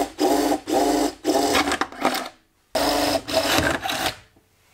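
Power drill run in short repeated bursts, about three a second, boring a mounting hole through the steel shifter box bracket; the motor's pitch rises and falls with each squeeze of the trigger. There is a brief pause about halfway, and it stops near the end.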